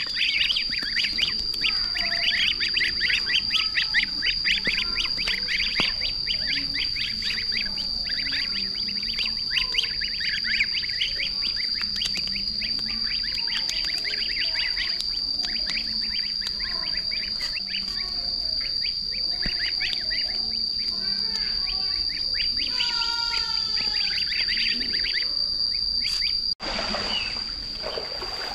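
A crowd of ducklings peeping rapidly and constantly over a steady high-pitched whine. The audio drops out briefly near the end.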